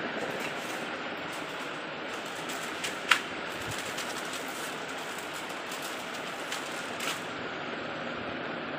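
Steady background hiss with a few light clicks, the sharpest about three seconds in.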